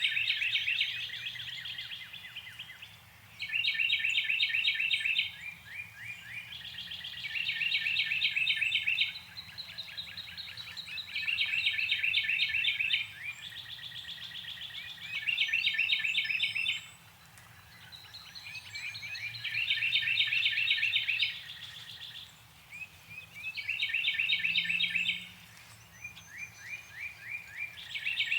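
Northern cardinal singing: phrases of quick, repeated whistled notes, each a second or two long, about every four seconds, with slower slurred notes between the phrases.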